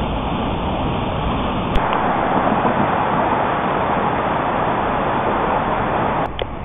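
Rushing floodwater, a steady noise with no clear pitch; it changes character about two seconds in and drops off suddenly near the end.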